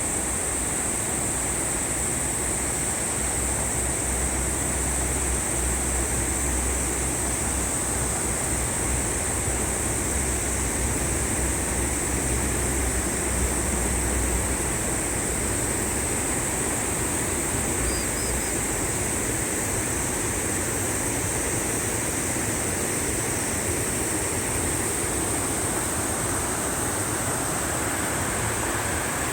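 Mountain valley stream rushing steadily, with a constant high-pitched hiss over it.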